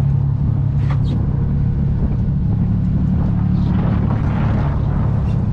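Sport-fishing boat's engine running steadily, a low even hum, while the boat holds position for bottom fishing.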